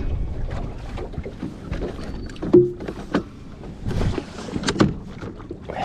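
Several sharp clunks and knocks of a bow-mounted electric trolling motor being handled and lowered on an aluminium boat's deck, over a low rumble of wind and water against the hull.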